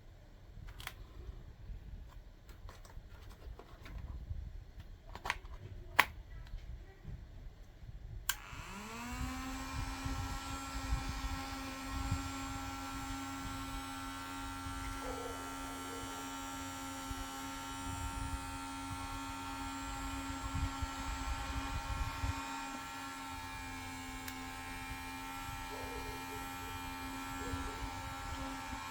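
A few clicks and handling knocks, then about eight seconds in a small battery-powered DC motor of a homemade mini fan switches on with a click. It quickly spins up and runs at a steady whining hum.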